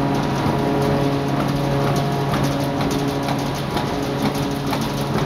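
Bar forging machine running: a steady machine hum with a dense, irregular clatter of light ticks.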